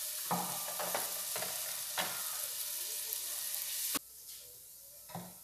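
Minced garlic and salt sizzling in hot lard in an aluminium pot, with a couple of sharp knocks of a wooden spoon against the pot. The sizzle cuts off suddenly about four seconds in, leaving it much quieter.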